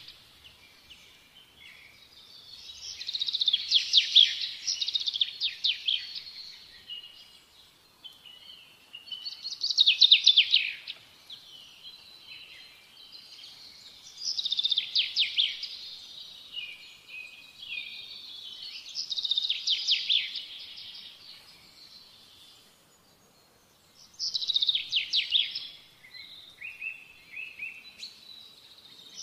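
A songbird singing in repeated phrases of fast trills and chirps, each phrase a few seconds long with short pauses between.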